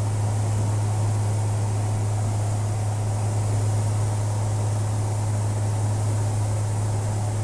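Engine and propeller drone of a Maule single-engine light aircraft in flight, heard inside the cabin: a steady, unchanging low hum under an even rush of noise.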